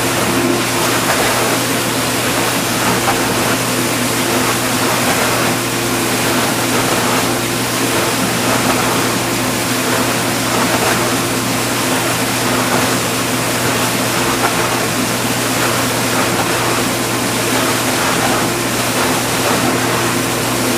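Vintage KitchenAid KDS-18 Superba dishwasher mid-wash: a steady pump-motor hum under the even rush of water spraying inside the tub.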